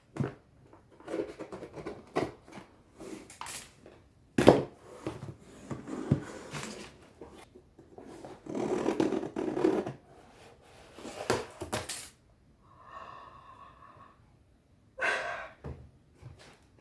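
Cardboard shipping box and its packaging being handled and opened by hand: irregular rustling, scraping and clicking, with a sharp knock about four and a half seconds in.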